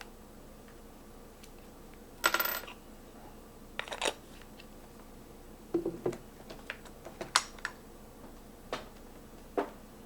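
Small hard parts being handled: a short rattling clatter about two seconds in, then a scatter of light clicks and taps.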